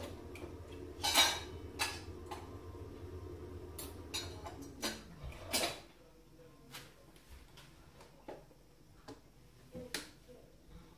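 Scattered clinks and taps of a spoon against spice containers and the mixing bowl, the loudest about a second in. Under them a low steady hum winds down and stops about five seconds in.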